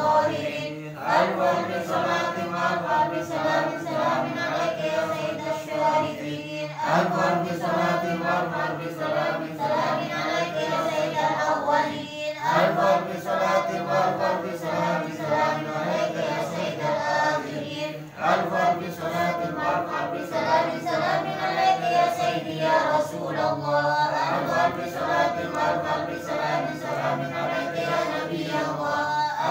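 Group of men chanting Arabic sholawat (devotional praise of the Prophet) together in unison, reading from text. The long sung phrases break briefly about every six seconds for breath.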